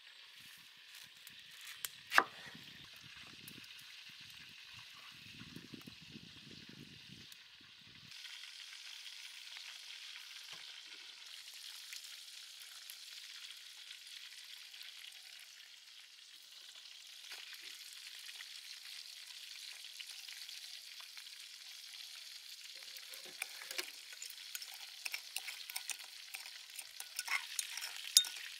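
A kitchen knife cuts through fresh pineapple with one sharp chop about two seconds in, followed by soft handling noises. From about eight seconds a steady hiss runs on, and near the end a metal spoon clicks and scrapes against a ceramic bowl while stirring a thick dark sauce, the clicks growing louder.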